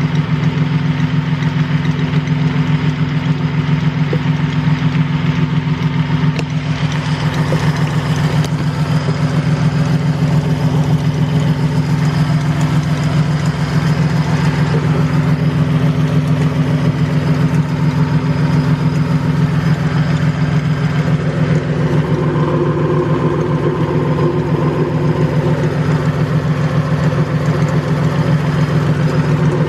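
Toyota Tacoma engine idling steadily, with a ticking, light knocking noise that the owner traced to a failing idler pulley. A second, higher steady tone joins about two thirds of the way through.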